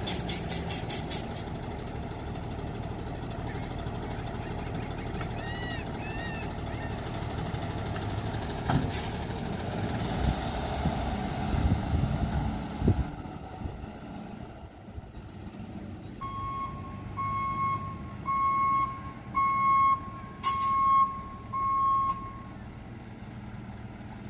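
Freightliner M2 rear-loader garbage truck's engine running as it pulls away and moves up the street, with short hisses of the air brakes. Its back-up alarm then beeps about six times, roughly once a second.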